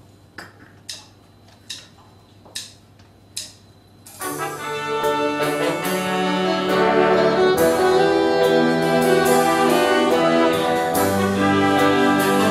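A few sharp ticks spaced under a second apart, like a count-in, then at about four seconds a big band of saxophones, trumpets and trombones with bass and drums comes in with a brass intro that swells in held chords.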